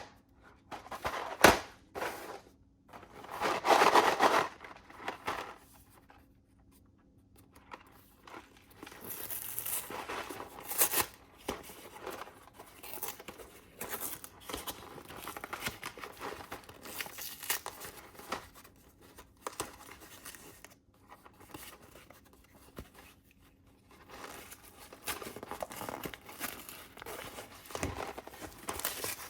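Food packaging being torn open and crinkled by hand: a few sharp clicks, a louder tearing rustle about four seconds in, then an irregular run of crackling and rustling with a short pause near the end.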